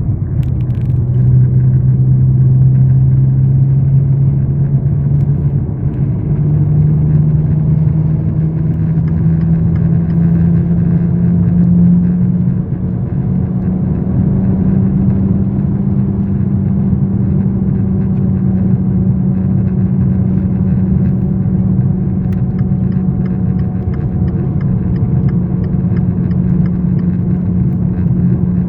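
Steady humming drone from a vehicle, over a dense low rumble. The hum climbs in pitch in a few steps over the first dozen seconds, then holds level. The owner cannot identify this humming, rattling noise.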